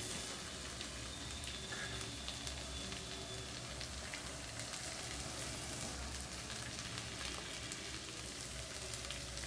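Diced carrots frying in a little oil in a wok over a lowered gas flame: a steady, soft sizzle, as chopped French beans are dropped in on top.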